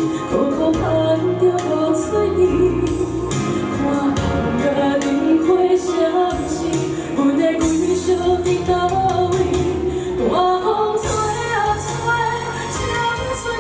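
A woman singing a pop ballad live over amplified backing music with bass and drums; her voice slides up in pitch about ten seconds in.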